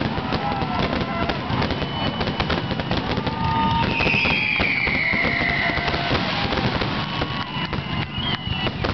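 Aerial fireworks shells bursting in a dense finale barrage, rapid overlapping bangs and crackles with no gaps. A long high whistle slides down in pitch from about four to six seconds in.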